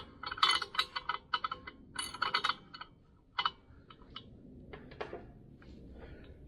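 Small metal hardware clinking and clicking as washers, spacers and nuts are handled, a quick run of light metallic clicks at first, then a few scattered clinks.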